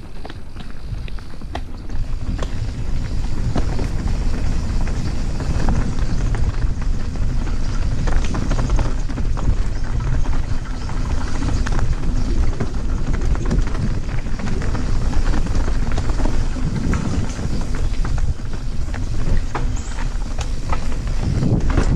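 A mountain bike ridden fast down a rocky dirt trail: tyres rumbling over gravel and stone, with many small knocks and rattles and wind buffeting the microphone.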